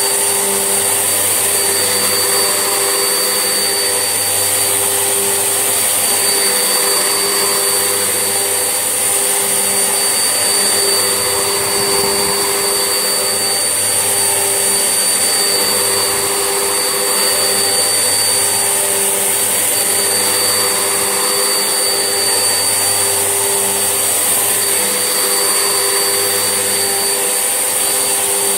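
Vax Essentials vacuum cleaner running steadily, a constant high motor whine over its rushing airflow, with slight swells in its lower tone as it is worked over the floor.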